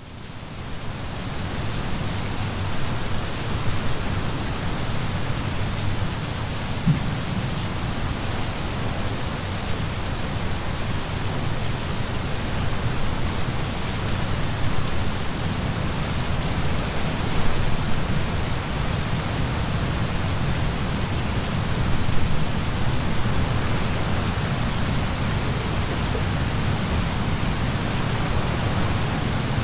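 Steady rain during a thunderstorm, a constant hiss with a low rumble beneath it, fading in at the start. A couple of brief swells of thunder come past the middle.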